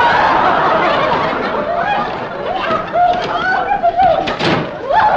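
Studio audience laughing loudly and continuously at slapstick, with a brief louder burst about four seconds in.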